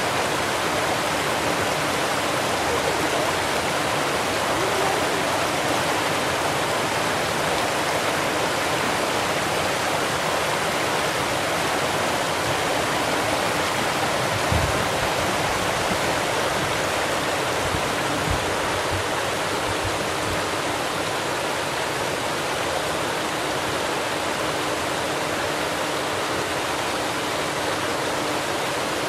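River water rushing over a low weir and churning through shallow rapids: a steady, even rush of falling and tumbling water.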